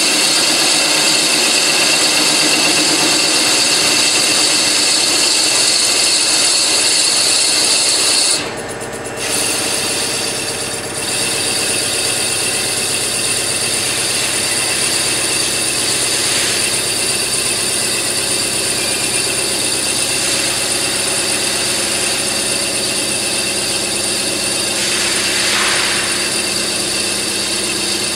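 CNC lathe turning a metal part: a steady mechanical whine and hiss of the running spindle and cutting tool. About eight and a half seconds in the sound briefly drops, then runs on with deeper steady tones.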